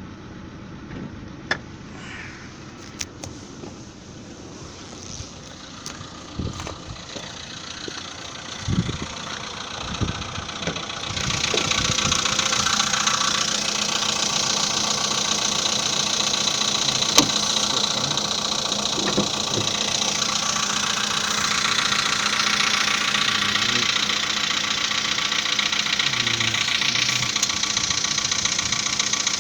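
VW Polo Sedan's 1.6-litre four-cylinder petrol engine idling just after a cold start, with a fast, even ticking clatter; it is the cold-engine piston knock being checked after the pistons were upgraded. During the first ten seconds a few scattered clicks and thumps sound over a quieter idle, and about eleven seconds in the engine becomes much louder and clearer.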